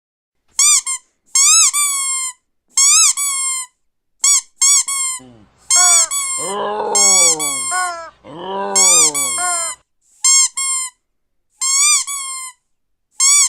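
Rubber squeaky dog toy squeezed over and over: short, high squeaks, mostly in quick pairs as it is pressed and released, with two longer, lower-pitched squeaks near the middle.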